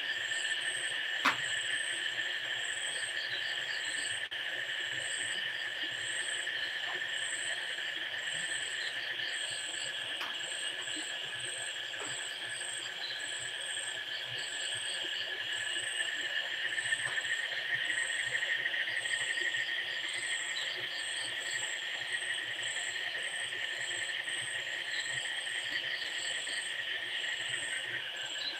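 Steady chorus of insects: several continuous high, even trills, with a faster pulsing chirp above them. A single sharp click about a second in.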